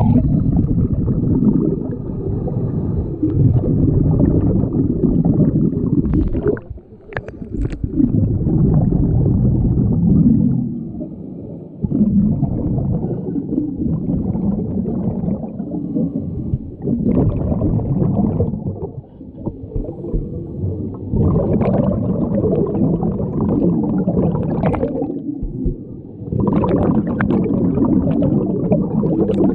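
Scuba diver's regulator breathing heard underwater: rumbling, gurgling spells of exhaled bubbles, each a few seconds long, with short breaks between breaths.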